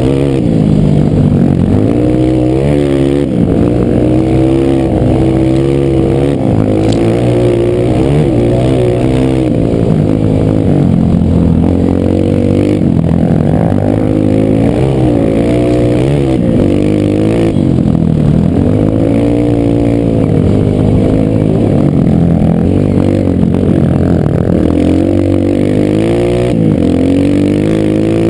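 Loud single-cylinder four-stroke trail-bike engine under way, its pitch rising and falling again and again as the throttle is opened and closed.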